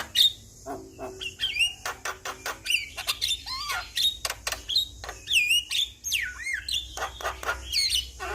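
Javan myna (jalak kebo) singing a busy, varied song: whistled notes that swoop up and down, mixed with many sharp clicks.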